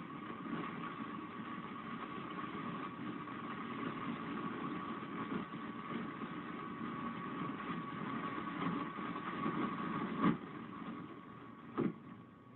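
Police car's engine and road noise heard from inside the cruiser through a dash camera's microphone, with a steady high whine over it. A sharp knock comes about ten seconds in, and another near the end as the noise dies down.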